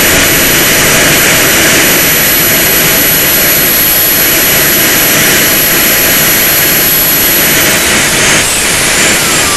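Small model turbojet engine on an RC truck running with a steady jet roar and a thin high whine. Near the end its whine drops steeply in pitch as the turbine spools down.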